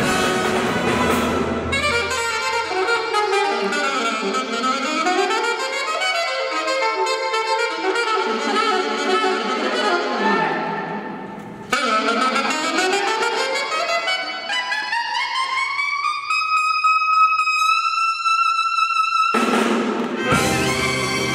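A jazz big band plays together for about two seconds, then drops out for an unaccompanied saxophone cadenza: quick runs that climb and fall, a brief break, then a long upward smear into a high held note. The full band comes back in near the end.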